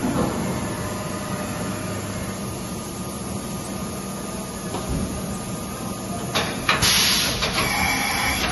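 Vertical machining center running with a steady hum. About six seconds in a short hiss sounds, then a louder, longer hiss of compressed air near the end as the automatic tool changer arm takes the tool at the spindle: the air blast of a tool change.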